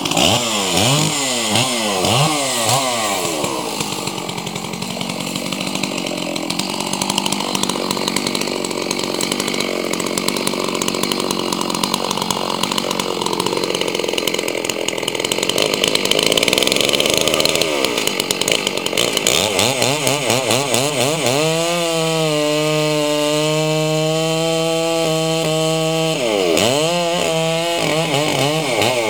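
Chainsaw cutting into the trunk of an ash tree. The engine revs up and down at the start, runs under load through the middle, holds a steady pitch for a few seconds later on, then revs up and down again near the end.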